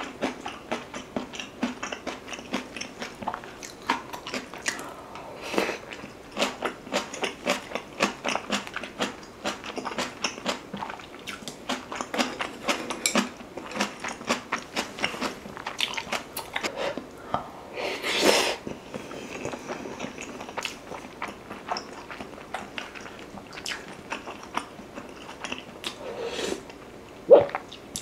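A person chewing a mouthful of food close to the microphone, a steady run of small mouth clicks several times a second. One louder knock near the end.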